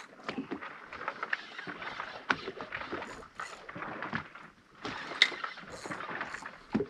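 Water slapping and splashing against a drifting boat's hull, with irregular knocks and clicks on board.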